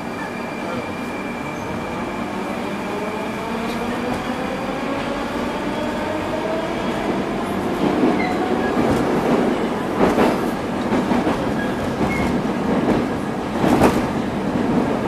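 Metrowagonmash 81-740/741 "Rusich" metro train heard from inside the car as it accelerates away from a station. The traction motors' whine rises steadily in pitch, then the wheels rumble louder on the track, with a few sharp knocks and clatters in the second half.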